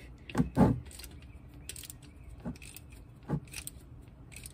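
Metal wrench clinking and scraping on the transmission drain plug as it is worked loose: a few separate clicks, the loudest two close together near the start.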